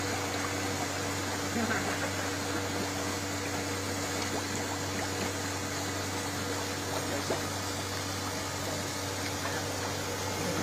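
Steady rush of water falling from a garden's artificial waterfall, with a low steady hum underneath.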